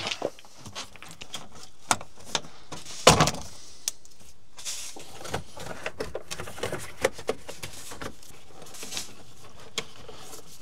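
Scattered clicks and knocks from hands handling hardware, with one louder clunk about three seconds in, over a steady low hiss.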